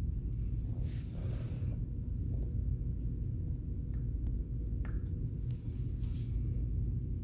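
A steady low background rumble, with a few light clicks about four to five seconds in as a finger presses the button on a digital crack-monitoring gauge. Soft rustles come near the start and again about six seconds in.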